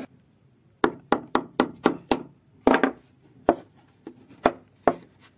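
Sharp wooden knocks from a chisel being struck and worked to prise decorative moulding off a wooden gate. There is a quick run of six, about four a second, then a few more spaced out.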